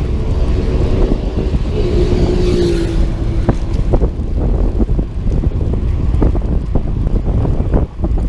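Wind rushing over the microphone of a camera on a cyclist riding a road bike, with road traffic running alongside. A vehicle's humming tone passes in the first few seconds.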